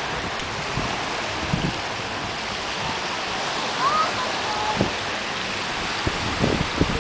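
Small waves washing onto a sand beach, with wind on the microphone, giving a steady rush. A seagull calls briefly about four seconds in.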